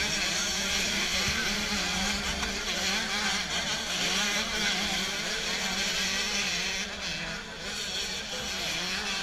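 Motocross dirt-bike engines revving on the track, their pitch rising and falling as the riders work the throttle.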